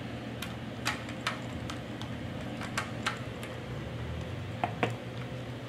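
Scattered light clicks and taps from handling a plastic toy RC monster truck and its controller, as it is readied with batteries, over a faint steady low hum.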